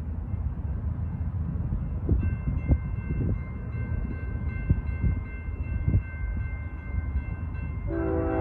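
A train rumbling along the mainline, with scattered knocks and a high steady ringing that joins about two seconds in. A train horn sounds a chord near the end.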